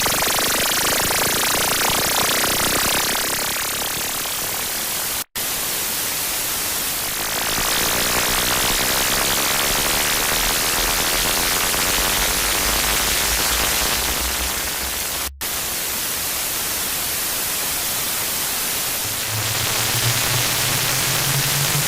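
Loud, harsh electronic static noise, a dense hiss across the whole range. It cuts out for an instant twice, and a low rumble runs under it for several seconds in the middle. Near the end a low tone comes in and rises slightly in pitch.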